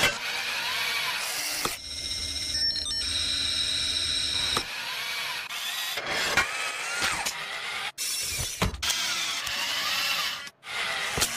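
Cartoon sound effects of robot factory machinery: a conveyor line and a robotic arm whirring and clanking. A steady mechanical whine runs from about two seconds in until about four and a half, and sharp clicks and clanks fall throughout.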